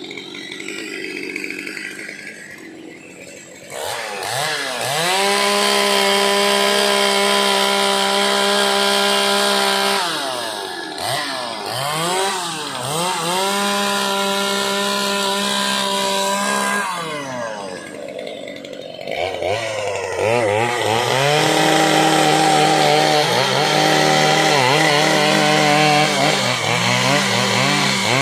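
Two-stroke chainsaw revving up about four seconds in and held at high speed, dropping back and revving again twice. In the second half the engine pitch wavers as the chain cuts into dry, hard teak.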